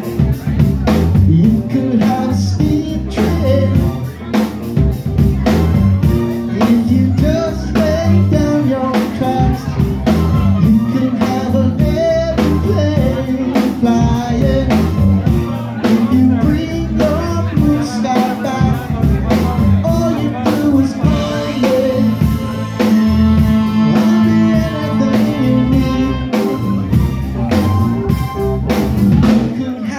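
Live rock band playing a song: a lead singer over drum kit, congas, electric guitar and keyboards, with a long held note about two-thirds of the way through.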